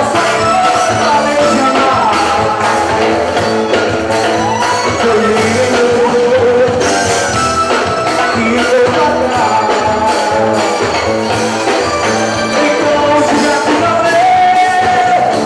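Live band music at full volume: a male singer over electric guitar and keyboard with a steady beat.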